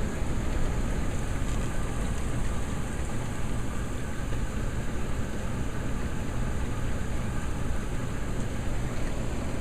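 Steady rain pouring down during a thunderstorm, with a constant low rumble underneath.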